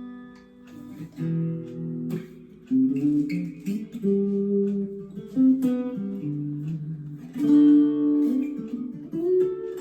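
Gear4Music LA Select Strat-style electric guitar played with a clean sound: single notes and chords that ring on and change every second or so, with several sharply struck chords.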